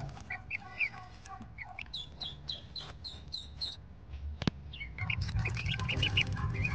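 Ducklings peeping: a run of short, high chirps repeated several times a second, with a sharp click about halfway through and a low rumble under the later peeps.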